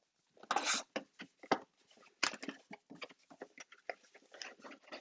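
A sealed hobby box of trading card packs being opened by hand: irregular crinkling, tearing and rustling of plastic wrap and cardboard, starting about half a second in and going on in quick, uneven bursts.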